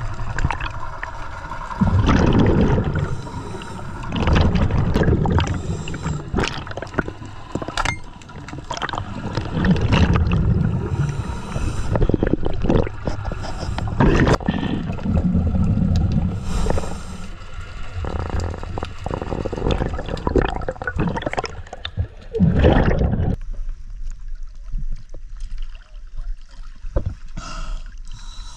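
Scuba regulator exhaust bubbles gurgling underwater in surges every couple of seconds, with scattered sharp clicks. About five seconds before the end the bubbling stops as the camera comes up, leaving quieter small splashes of water at the surface.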